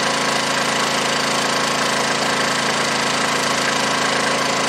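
Honda EU2200i inverter generator's single-cylinder engine running steadily on propane under load from a heat gun, with the heat gun's blower hiss mixed in.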